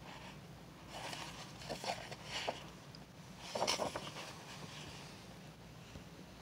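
A sheet of printing paper being handled, with a few soft rustles and crinkles about a second, two seconds and three and a half seconds in, over a faint steady hum.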